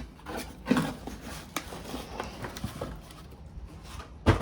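Irregular clicks and knocks from handling a mechanical keyboard and its packaging, with one louder thump near the end.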